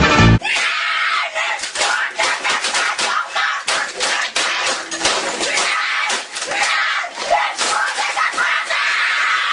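Loud music cuts off just after the start. A boy screaming in a rage takes over, a harsh, noisy, high-pitched scream with many sharp hits cutting through it.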